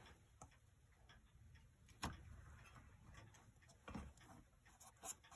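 Faint, irregular clicks and taps as a clock's metal motor housing is handled and pressed into its brass frame while it is taped in place, with two louder knocks about two seconds in and about four seconds in.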